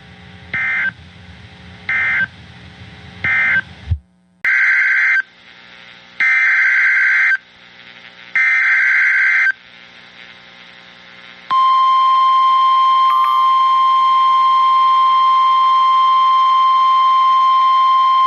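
Emergency Alert System signalling from a NOAA Weather Radio broadcast. First come three short, buzzy SAME end-of-message bursts that close the previous warning. Then come three longer SAME header bursts announcing the next alert, and about eleven seconds in, a loud, steady single-pitch warning alarm tone (1050 Hz) starts and holds.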